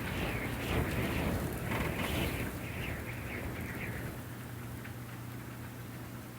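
Winter wind gusting outside a cabin window, heard from inside the room, the gusts easing after about four seconds, over a low steady hum.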